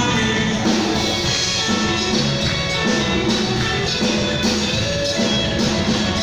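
Live band playing with a steady drum-kit beat, electric and acoustic guitars and keyboard.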